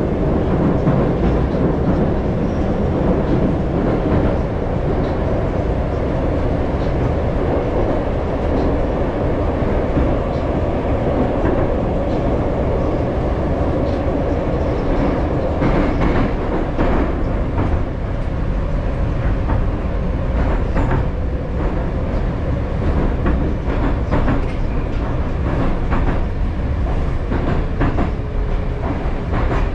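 Moscow Metro Moskva-2020 train running through the tunnel, heard from inside the car: a steady loud rumble, with sharp knocks over the rail joints from about halfway. Near the end it pulls into the station with a falling whine as it slows.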